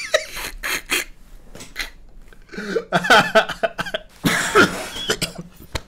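A man laughing under his breath, holding it in, in short breathy bursts, with a couple of brief louder voiced laughs about two and a half and four and a half seconds in.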